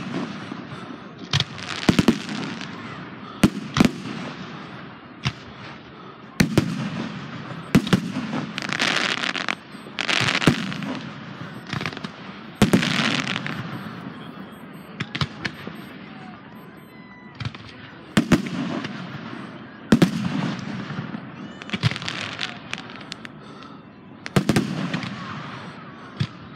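Aerial fireworks display: a steady run of sharp bangs as shells launch and burst overhead, many followed by a crackling hiss that fades over about a second.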